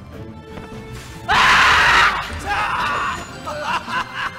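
A loud, rough scream of under a second about a third of the way in, then a second, shorter cry and a few wavering vocal calls, over stage music.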